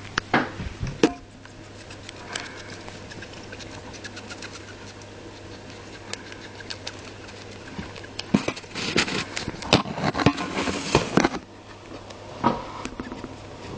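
Gerbil breathing with a wet, sniffly sound from a long-term nasal sniffle, which the owner says is not an acute respiratory infection. Bursts of scratching and clicking, the gerbil scrabbling, come just after the start and again in a louder run of a few seconds near the end.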